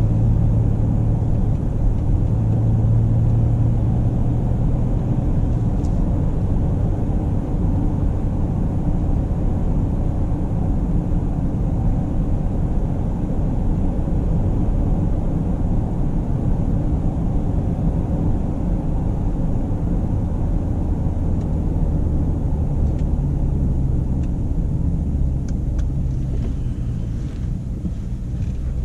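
Mercedes-Benz GLE Coupe driving along, with a steady low rumble of engine and road noise. A clear engine tone in the first few seconds settles back into the general rumble.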